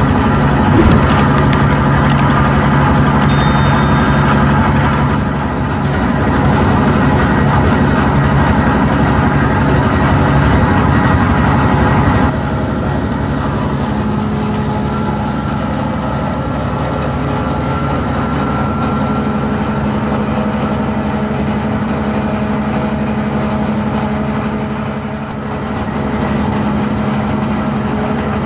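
Heavy machinery in a plastic-recycling workshop running steadily with a continuous hum. The sound drops and changes abruptly about twelve seconds in.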